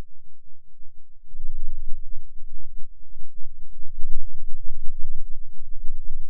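A cartoon logo soundtrack slowed down roughly 140 times, heard as a deep, low, pulsing rumble. It gets louder about a second and a half in.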